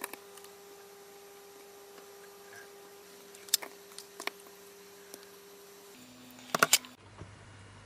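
A few short, light clicks and taps of small electronic parts and a circuit board being handled on a workbench, the loudest cluster about six and a half seconds in, over a faint steady hum.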